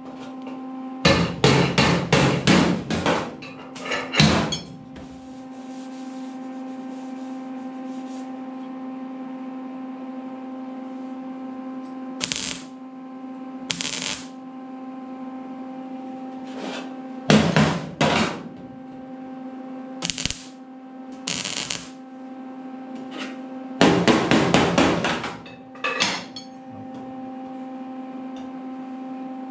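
MIG welder tack-welding on the sheet-metal cab panel of a 1952 Ford half-ton truck to fix a pull point for a homemade dent puller, in about ten short bursts, the longest about a second in and again about 24 seconds in. A steady hum runs underneath.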